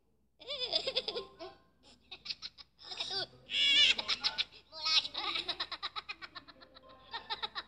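Cartoon Minions laughing and giggling in high, squeaky voices, in fast repeated ha-ha pulses.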